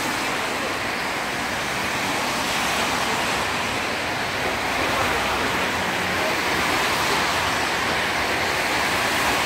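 Steady city traffic noise: a continuous hiss of car tyres on a wet road as vehicles pass.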